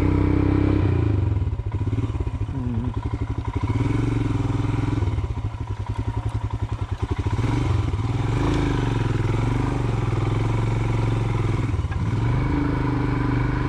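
Royal Enfield Himalayan's 411 cc single-cylinder engine pulling the bike along an off-road track. The revs rise and fall with the throttle, and around six seconds in it drops to slow, distinct firing beats as it lugs at low revs.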